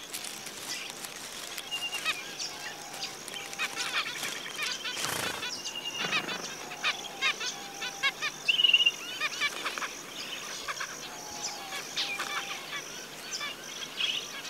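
Zebra finches chirping with many short calls, one louder trill a little past halfway, over a steady high insect buzz.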